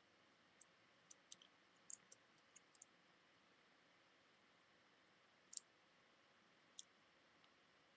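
Faint, scattered clicks of a short hook and pins inside a CISA Logo Line pin-tumbler lock being single-pin picked under a tension wrench, the pick working a pin caught on a spool pin. The clicks come in a cluster over the first three seconds, then two more a few seconds apart.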